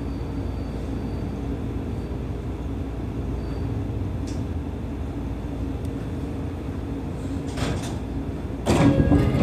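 Seibu 30000 series electric train heard from the driver's cab, a steady running rumble with a faint steady hum. Near the end a sharp noise comes twice, the second much louder and lasting about a second.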